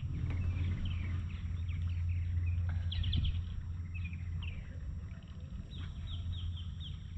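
Small birds chirping repeatedly in short calls over a steady low rumble, which fades about halfway through.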